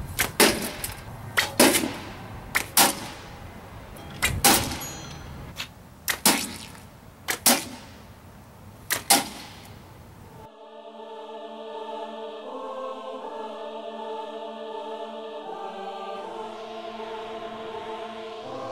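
A cassette deck being struck: about a dozen sharp knocks, many in quick pairs. About ten seconds in, these cut off suddenly and choral music begins.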